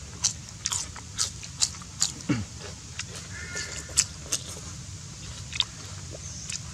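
Close-up crunchy chewing of a bite of crispy rice-flour pancake (bánh xèo) wrapped in fresh leafy greens, with crisp crunches about twice a second at first, then only now and then. A brief low voice-like sound about two seconds in.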